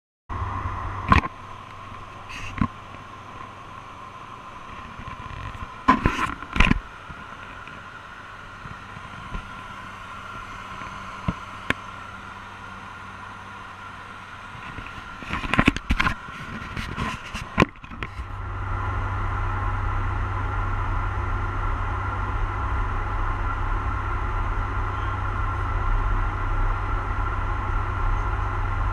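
Airliner cockpit noise in flight: a steady hum of airflow and equipment with a few faint steady tones, broken by scattered clicks and knocks. About two-thirds of the way in, the hum turns louder and deeper and stays steady.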